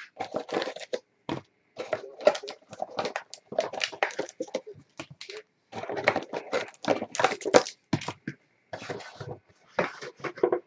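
Crinkling and rustling of plastic wrap and cardboard in short, irregular bursts as a sealed box of 2017 Panini Vertex football cards is unwrapped and opened.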